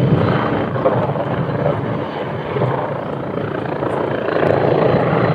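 MBB Bo 105 helicopter flying a display, its twin turboshaft engines running and its main rotor beating steadily; the sound eases a little about two seconds in and swells again near the end.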